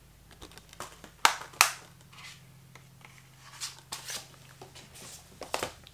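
Hands handling a plastic 4K/Blu-ray disc case and its packaging: two sharp plastic clicks a little over a second in, then lighter rustling and taps.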